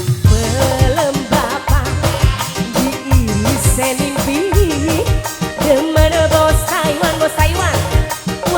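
Tarling dangdut band playing live: a wavering, ornamented melody line, most likely a singer's voice, over a steady beat of drums and bass.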